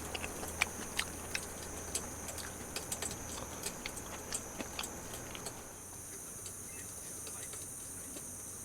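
Insects droning steadily in the trees, with a run of light clicks and taps through the first five seconds or so that then stop.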